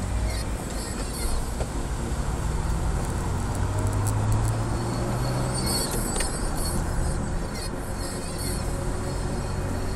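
Car engine and road noise heard from inside the cabin as the car pulls away from a junction and drives on; a low engine drone grows stronger about three and a half seconds in.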